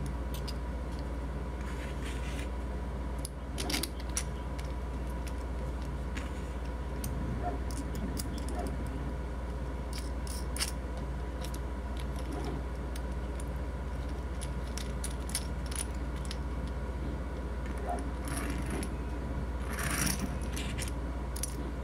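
3D-printed plastic caster parts and a steel bolt and hex nut being handled and fitted together: scattered light clicks, taps and small metallic clinks, with a longer scrape near the end as the assembled caster is moved on the desk. A steady low hum runs underneath.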